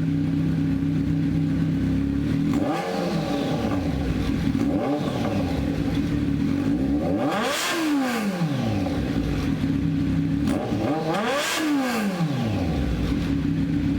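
Kawasaki Z900 inline-four idling through an SC Project S1 exhaust on aftermarket steel headers, with the dB killer fitted, revved four times. Two short blips come first, then two bigger revs, each rising and falling back to idle.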